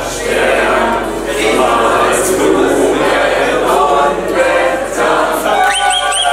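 A group of voices singing together, with a few short high rising whistle-like sounds repeating near the end.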